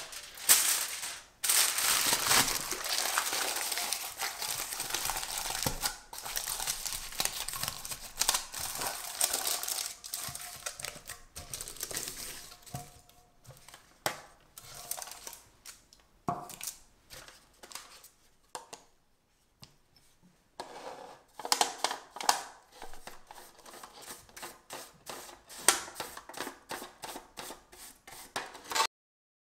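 Aluminium foil crinkling and rustling as it is pressed and folded around a metal loaf pan: dense crinkling at first, then short separate crackles after a brief lull.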